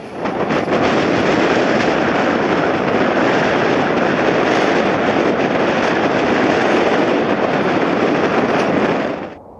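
Loud, steady jet engine noise of an airliner flying past close by; it cuts off suddenly near the end.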